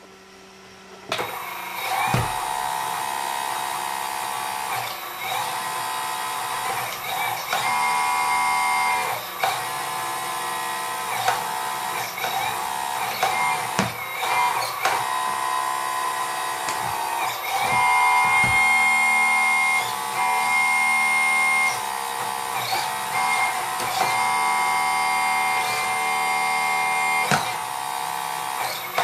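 Hydraulic pump of an RC model Locust 752 skid steer loader running with a steady whine that starts about a second in. Its pitch and level shift every few seconds as the valves are worked and the lift cylinders take load.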